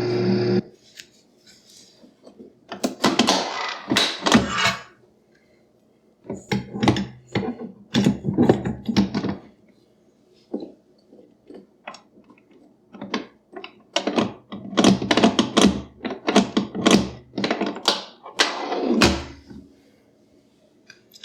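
A Kenwood stand mixer's motor switching off and spinning down with a falling hum in the first half-second. Then several bursts of clunks, clicks and rattles follow as the mixer and its parts are handled.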